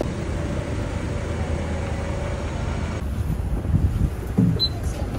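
Steady low rumble of a vehicle running; the background changes about three seconds in, followed by a couple of dull thumps.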